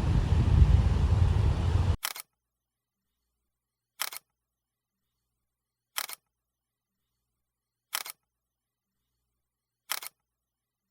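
Steady road and wind noise from a moving vehicle, cut off abruptly about two seconds in. Then five short camera-shutter clicks, one every two seconds, in otherwise dead silence.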